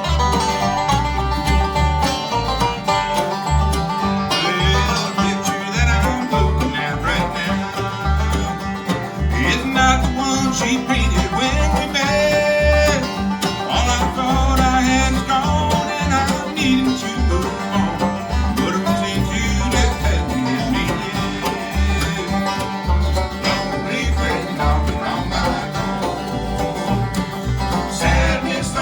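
Bluegrass band playing live: banjo, mandolin, guitar, dobro and bass in an instrumental passage, the bass keeping a steady beat.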